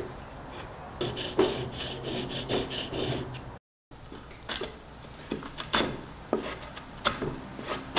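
A steel chisel rubbed back and forth in short strokes on a wet 1000/400-grit combination whetstone. After a brief cut-off, the freshly sharpened chisel pares into a pine board in a series of short, sharp slicing cuts.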